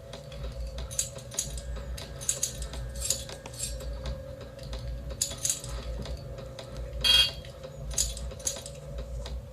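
Short metallic clinks and jingles of keys, about a dozen at uneven intervals, with one louder clink about seven seconds in, over a steady hum. These are the key-and-lock sound effects of an online puzzle game, heard as keys are tried in locks against the clock.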